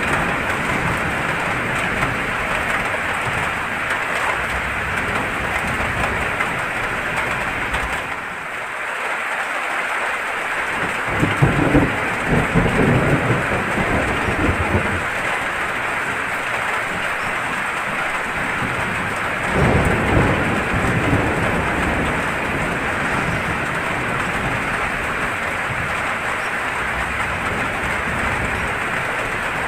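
Steady heavy rain with rolling thunder; the thunder swells about eleven seconds in and again around twenty seconds.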